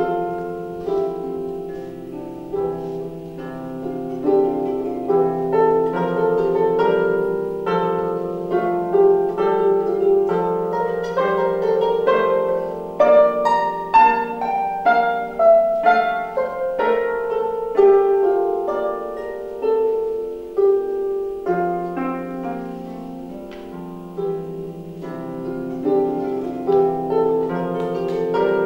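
Solo lever harp played with plucked notes: a melody over ringing bass notes, growing louder in the middle and softer again later.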